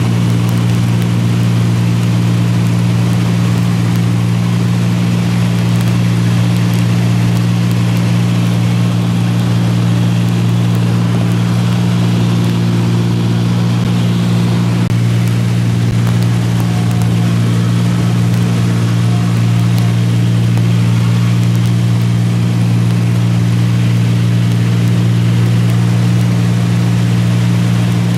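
Light sightseeing aircraft's piston engine and propeller droning steadily, heard from inside the cabin, with a constant rush of air noise over it.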